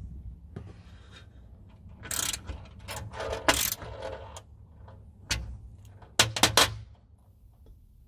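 Stainless steel tie-down hardware being handled and fitted to an aluminium drawer pan: scattered metallic rattles and clinks, with a quick run of three clicks about six seconds in.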